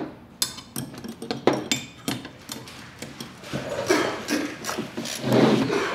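Irregular metal clicks and clinks of a screwdriver and open-end wrench tightening a small bolt and nut on a steel brake pedal bracket, with louder scraping rattles of the metal parts about four seconds in and again near the end.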